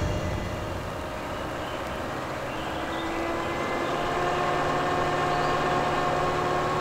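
Engines of a convoy of jeeps driving, a steady drone that grows gradually louder.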